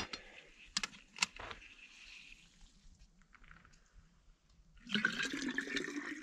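A couple of light metallic clicks about a second in, then, about five seconds in, water poured from a cook pot into a stainless steel vacuum flask, a steady pour filling the bottle.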